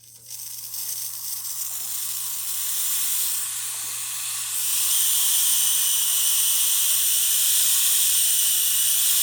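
Steam wand of a DeLonghi Specialista Arte espresso machine blowing steam with a strong, steady, high-pitched hiss that grows louder about five seconds in. The steam path was almost clogged and has been deep-cleaned, and the full flow shows it working again.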